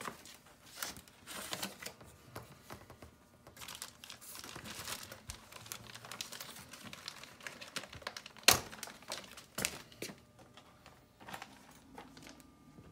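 Plastic packaging bags crinkling and rustling as they are handled and pulled off the back of a new dishwasher, with one sharp click about two-thirds of the way through.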